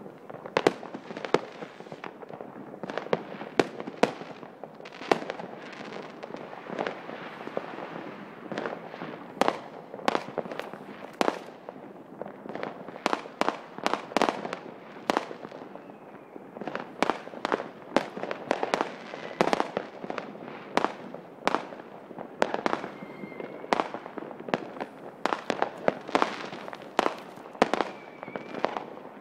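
New Year's fireworks bursting in a steady barrage of many bangs, some loud and close, others fainter, over continuous crackling. A few short faint whistles sound in the second half.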